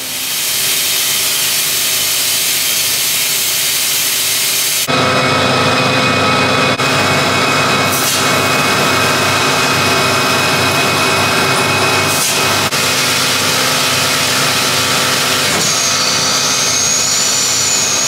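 Dairy milking system running its wash cycle: the vacuum pump and wash water make a loud, steady machine noise with a few held tones, which shifts and grows slightly louder about five seconds in. A faint high, wavering whistle joins near the end.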